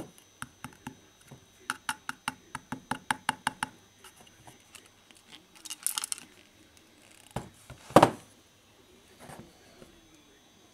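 Light clicks and knocks of a plastic object being handled: a quick run of clicks, about four or five a second, in the first few seconds, a short rustle around six seconds, and a sharp knock about eight seconds in.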